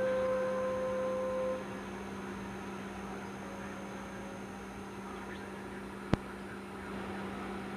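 Steady low hum with background hiss. The last held note of music fades out in the first second and a half, and a single sharp click comes about six seconds in.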